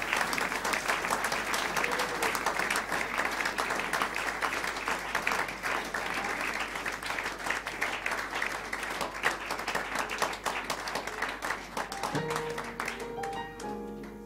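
Club audience applauding, the clapping dying away about twelve seconds in as a grand piano begins to play.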